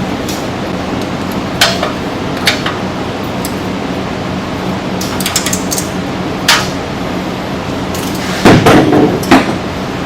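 Hand tools and metal parts clinking and knocking while the exhaust header pipe is unbolted: scattered single clicks, then a louder run of clanks near the end, over a steady background hum.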